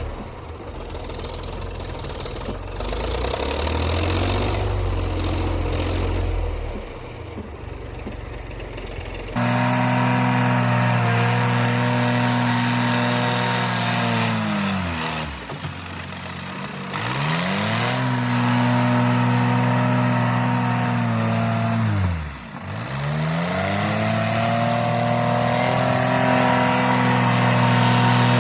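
John Deere backhoe's diesel engine running under load while pushing snow, its note rising and falling with throttle and load. About a third of the way in the sound turns suddenly louder and fuller. Twice after that, about halfway and three quarters through, the engine note drops sharply and climbs back.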